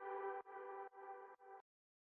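Electronic background music, a single synth chord pulsing about twice a second and fading out, then cutting off about one and a half seconds in.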